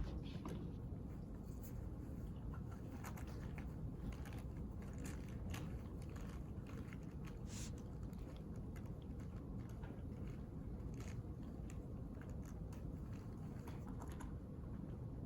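Quiet study-room ambience: a steady low ventilation hum with scattered small clicks and taps, like keys being typed and things being handled.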